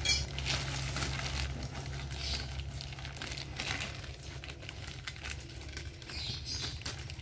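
Clear plastic parcel wrapping crinkling and rustling in irregular bursts as it is handled and cut open with small scissors.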